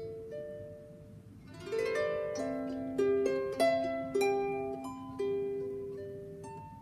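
Small wooden harp being plucked: a quick upward run of notes about two seconds in, then single notes ringing out and fading away.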